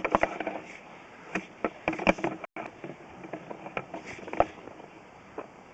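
Irregular light clicks and knocks as a sewer-scope camera's push rod is fed by hand through the pipe, over a low steady hiss.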